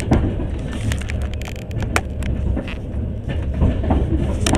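Moving train heard from inside the carriage: a steady low rumble with irregular clicks and rattles.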